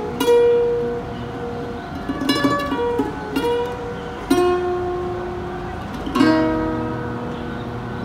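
Acoustic guitar played solo: slow, sparse plucked notes and chords, each left to ring and fade before the next.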